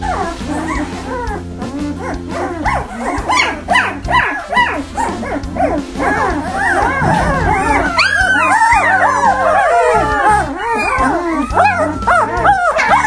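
Several young puppies crying together in high, arching whines and yips that overlap, growing busier about two-thirds of the way in, over steady background music.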